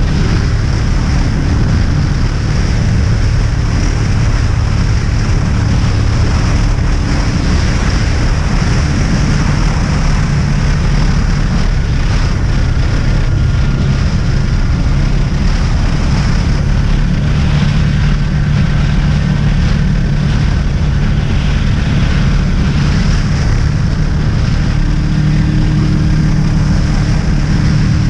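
Honda VFR800's V4 engine running steadily at road speed under heavy wind rush on the microphone. The engine note climbs a little partway through.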